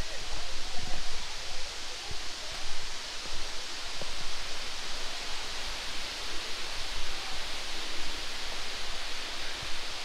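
Steady outdoor hiss with a low rumble and scattered thumps of footsteps and a handheld camera as someone climbs over rocks on foot; a few faint bird chirps.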